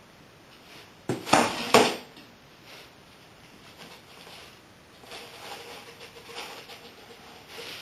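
Two or three loud, sharp clacks about a second in. Later, a softer rustling as a small dog noses into a box on a tile floor.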